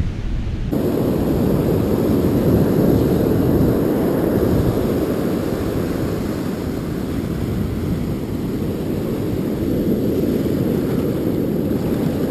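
Wind buffeting a chest-mounted GoPro's microphone over the rumble of breaking ocean surf, a steady low noise that starts abruptly less than a second in.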